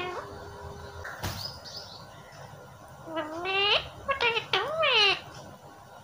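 Indian ringneck parakeet calling: a single rising squawk about three seconds in, then a quick run of short calls that bend up and down in pitch around the four-to-five-second mark. A sharp click about a second in.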